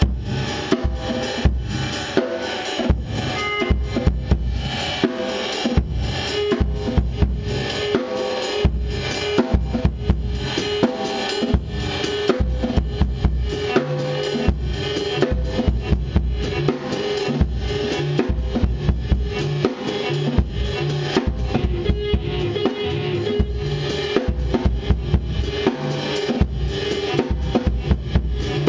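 A band jamming, with a drum kit keeping a steady beat of kick and snare over sustained low bass notes that change every second or two.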